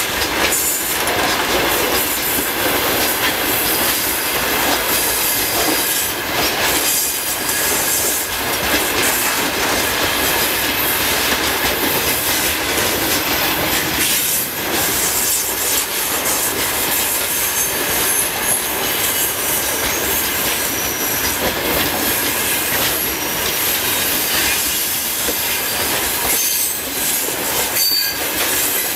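Freight train of open gondola and covered hopper wagons rolling past close by: a steady, loud rolling and rattling of steel wheels on rail, with scattered wheel clacks and a thin, high wheel squeal at times.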